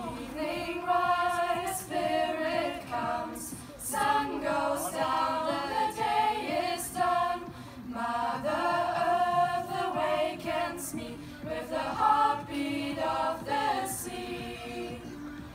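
A small mixed choir of young singers singing together, in long held phrases with short breaks between them.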